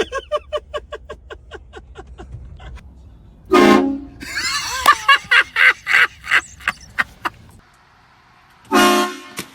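Car horn honked twice in short blasts, once about three and a half seconds in and again near the end, with a run of rapid, wavering pulses between them.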